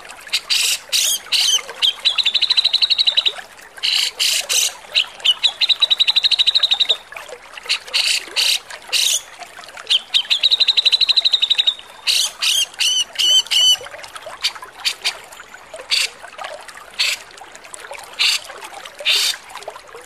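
Grey-cheeked bulbul (cucak jenggot) giving harsh, rasping calls in quick bursts, broken three times by a fast, even chattering trill lasting one to two seconds.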